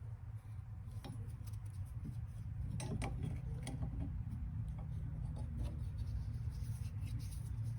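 Scattered light clicks and scrapes of small calipers being handled and fitted onto a water pipe, a cluster of them about three seconds in, over a steady low hum.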